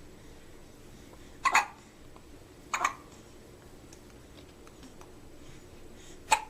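Three short, sharp hiccups: one about a second and a half in, one near three seconds, and one near the end.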